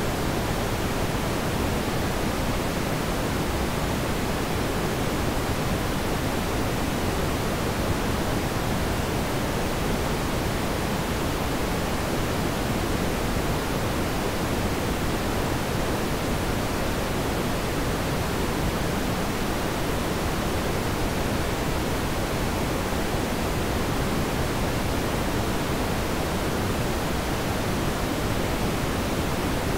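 A steady, even rushing hiss that spreads across low and high pitches alike, with no changes in level and no distinct events.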